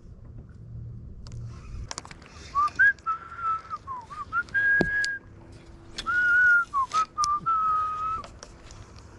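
A person whistling a tune, a string of held notes joined by short slides up and down, starting about two and a half seconds in and stopping near the end. A low hum runs underneath at first and stops about two seconds in, and a few sharp clicks fall among the notes.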